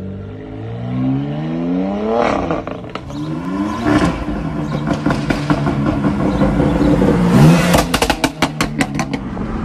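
BMW X3 M (F97) twin-turbo 3.0-litre straight-six at full throttle, its exhaust note rising in pitch twice in quick succession as it accelerates, then running hard. Near the end comes a rapid string of about ten sharp exhaust pops and crackles.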